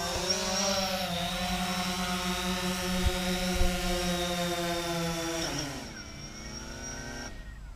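DJI Phantom 4 quadcopter's propellers and motors humming in a steady hover. About five and a half seconds in the hum drops in pitch and grows fainter, then dies away.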